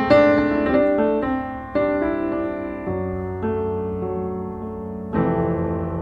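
Background piano music: slow chords struck every second or so, each ringing and fading.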